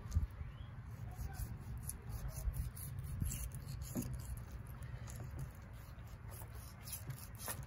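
Fillet knife cutting through a flathead catfish along its rib cage and backbone: faint cutting and a few soft clicks over a steady low rumble.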